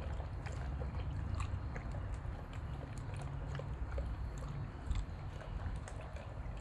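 German shepherd chewing food, with irregular crunches and clicks over a low steady rumble.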